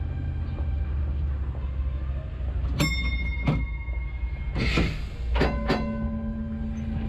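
Heritage tram standing at a stop, heard from the cab: a steady low rumble. Sharp clicks come with a high steady tone held for about two seconds, then a short hiss, and after two more clicks a steady hum starts and carries on.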